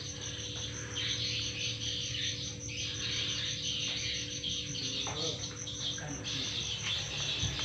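Crickets chirping in a fast, even pulse, with more insect trilling swelling and fading behind it.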